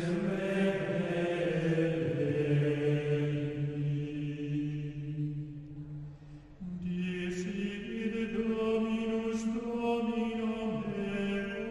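Background music of chanted singing: voices holding long, drawn-out notes that shift pitch every second or two, with a brief break about six seconds in before the chant resumes.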